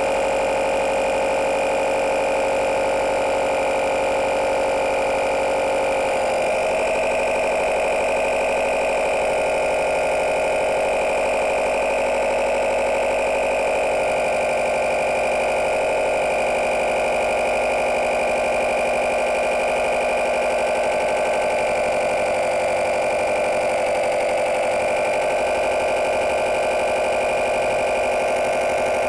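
12 V mini tyre-inflator air compressor running steadily under load as it pumps up a bike tyre, a continuous motor-and-piston hum whose pitch shifts slightly about six seconds in.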